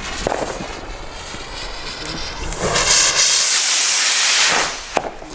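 A firework rocket's fuse sizzling, then about two and a half seconds in the rocket launches with a loud rushing hiss that fades out as it climbs. A single sharp crack comes near the end.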